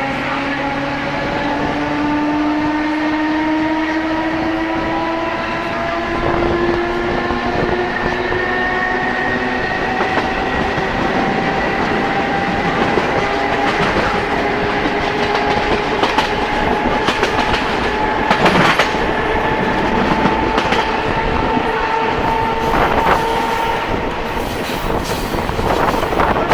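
Budd 1100-series electric train heard on board, its traction motors running with a whine that slowly rises in pitch as the train accelerates. In the second half the wheels click over rail joints.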